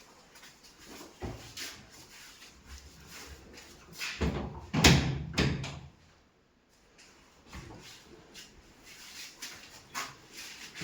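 Wooden wardrobe doors being opened and shut, with scattered knocks and a cluster of loud bumps about four to five and a half seconds in.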